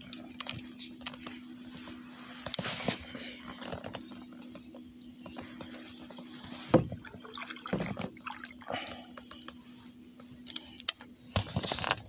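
Water lapping and small splashes against a plastic kayak hull, with scattered knocks and clicks from handling the boat and fishing gear. A faint steady low hum runs underneath.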